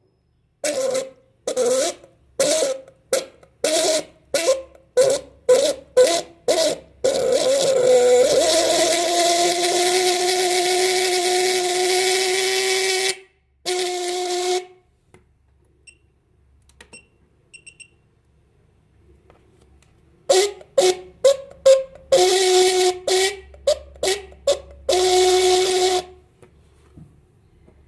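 Electric car horn honking: a run of about a dozen short honks, then a steady blast lasting about six seconds and one more short one. After a quiet gap of a few seconds comes a second run of honks and longer blasts. In the first honks the pitch wavers, then it holds steady.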